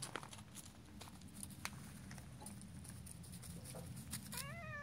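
Scattered light clicks and rustles, then near the end a cat begins one long meow that rises and then levels off.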